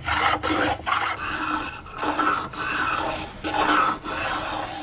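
Hand rasping of a wooden column's corner with a small handheld abrasive block, in a run of repeated rubbing strokes that round the edge over.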